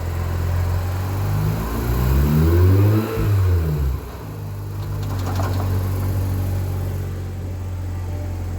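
Mazda RX-8's twin-rotor rotary engine running in reverse gear, turning the wheels during a test of the freshly rebuilt six-speed transmission. The pitch rises and falls once between about two and four seconds in.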